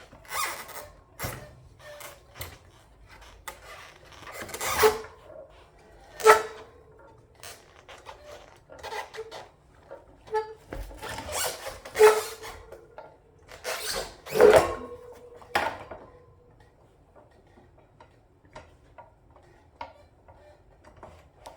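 Irregular knocks, scrapes and clatter of a motorcycle front wheel being worked back in between its brake calipers, its twin brake discs knocking against the calipers. Several of the louder knocks ring briefly with a metallic tone, and the handling goes quieter for the last few seconds.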